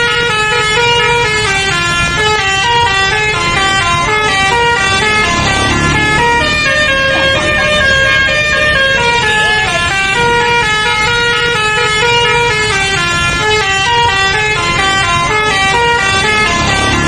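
Bus telolet horn: a bank of air horns sounding in turn to play a fast melody of short, stepping notes, running in repeated falling and rising phrases.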